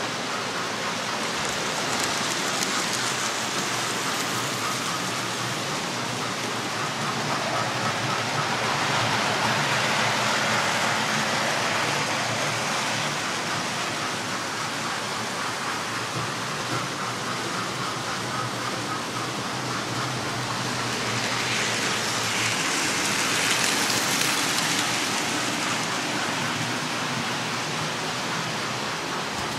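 Model trains running on the layout: a steady rushing rumble of small wheels on track with the whir of their electric motors, growing louder twice, about a third of the way in and again past two-thirds.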